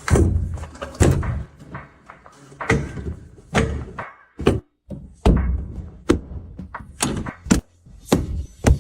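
A series of sharp thuds and knocks, roughly one to two a second.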